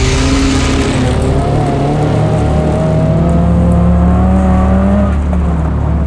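Suzuki Swift rally car engine at high revs as the car slides through a gravel corner and accelerates away. The pitch climbs steadily, then drops suddenly about five seconds in.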